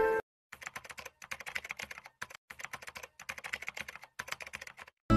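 Rapid computer-keyboard typing clicks, starting about half a second in and running in quick bursts with a few brief pauses.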